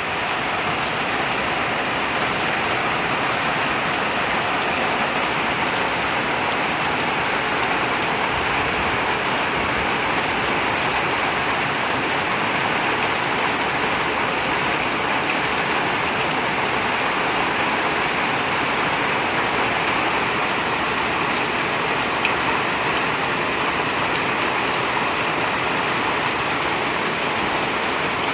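Heavy rain falling: a constant, even hiss with no pauses or swells.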